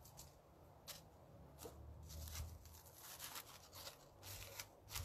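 Aluminium foil crinkling faintly as it is peeled off a foil-baked potato, in a few short crackles with pauses between.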